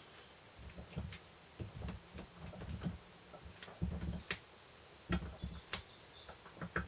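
Scattered light clicks and soft knocks of a gloved hand handling and pressing a gasket down onto a metal transfer box casing, with two sharper clicks a little past halfway.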